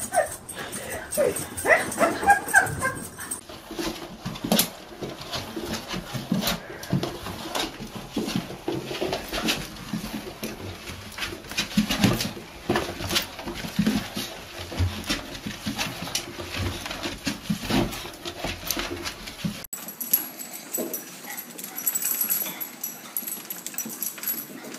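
Small dogs chasing their own leashes: dog vocal sounds over many quick clicks and knocks. The sound changes abruptly twice, a few seconds in and near the end.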